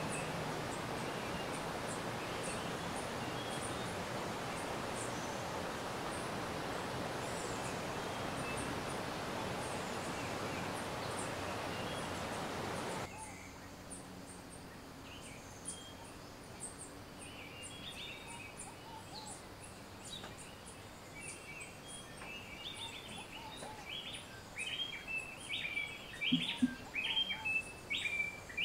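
Steady rush of running water from a mountain stream, with faint high bird chirps over it; about halfway through it cuts off abruptly to a quieter forest background where birds chirp and call, more often and louder near the end.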